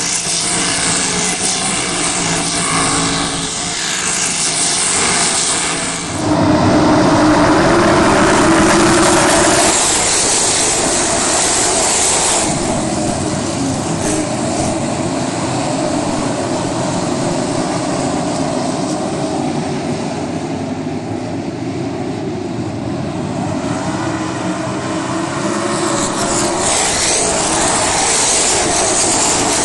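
Dirt-track race car engines running loud and steady on the track, winged sprint cars among them. The sound jumps louder about six seconds in and drops back about twelve seconds in.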